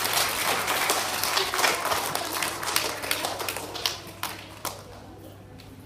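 An audience applauding: dense clapping that thins to a few last claps and dies away about five seconds in.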